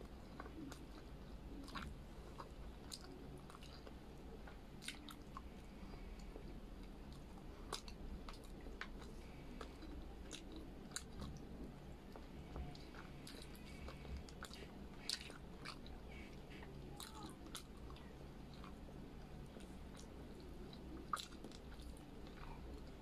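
Close-up chewing of braised pork belly and rice eaten by hand: faint, irregular small wet mouth clicks and smacks. A sharper click comes near the end.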